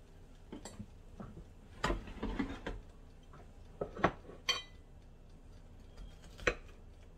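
Scattered clicks and clatters of a knife and fork on a plate as a chicken wing is set down and cut, with a knock of the air fryer's plastic basket being pushed shut and one short ringing clink of metal on the plate.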